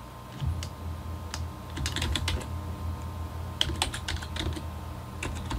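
Typing on a computer keyboard: irregular, uneven keystrokes as a file name is typed in.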